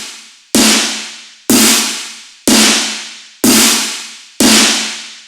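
Sampled electronic snare drum hit repeating about once a second, each hit with a long decaying tail. It is processed through the Waves MV2 plug-in with its low level pushed up, which thickens the snare.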